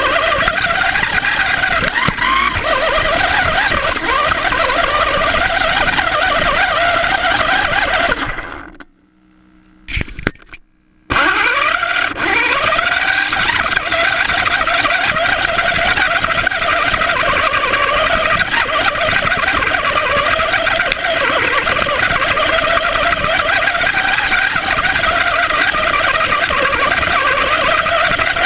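FTX radio-controlled car driving, its motor whine wavering up and down in pitch with the throttle over a rough noise. The sound cuts out for about two seconds near the middle, then picks up again.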